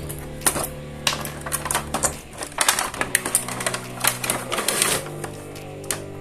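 Quick, irregular clicks and clatter of hard plastic toy pieces being handled and unpacked, over background music with steady held notes.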